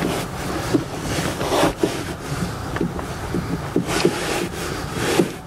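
Fabric seat cover rustling and rubbing as it is pulled and worked down over a truck's seat back, with scattered short squeaks of the material against the seat.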